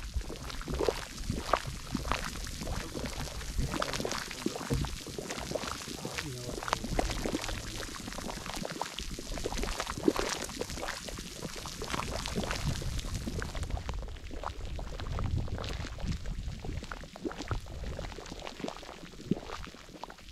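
Water in a steaming hot spring pool bubbling and gurgling close to the microphone: a continuous run of irregular pops and splashes.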